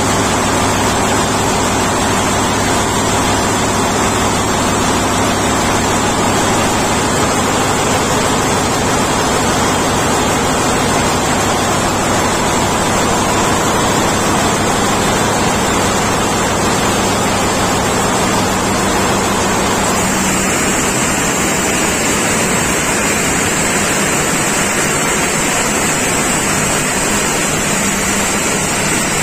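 Wärtsilä 20V32 twenty-cylinder medium-speed engine running loud and steady, a deep hum under a dense hiss. About twenty seconds in, the sound changes: one hum line and the higher hiss drop away, as the engine's emergency trip for high deviation in several fuel injection pumps takes effect and the engine falls to about 670 rpm near the end.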